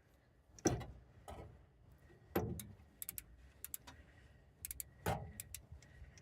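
Ratchet of a click-type torque wrench clicking in short runs as it works a rear caliper bracket bolt toward 130 ft-lbs, with three louder strained grunts of effort.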